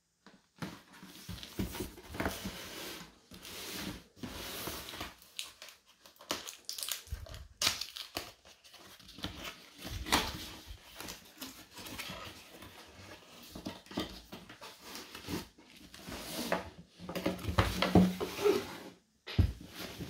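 Packaging being handled during an unboxing: crinkling and rustling in irregular bursts, with a few short knocks.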